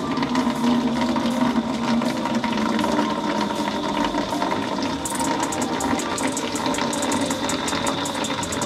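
Water running from an outdoor tap into a plastic basin: a steady splashing stream, with a finer, crackly patter joining in about halfway through.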